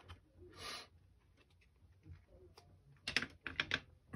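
A quick run of about five sharp plastic clicks and taps about three seconds in, as a plastic diamond-painting drill tray is handled and set down.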